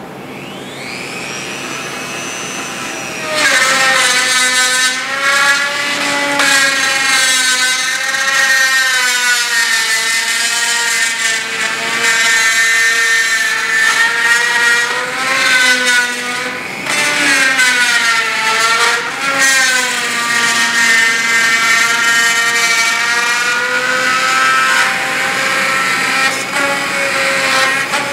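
Corded Dremel rotary tool with a plastic cutting bit spinning up with a rising whine, then cutting out the end of a plastic lock-on handlebar grip. Its pitch keeps dipping and recovering as the bit bites into the plastic.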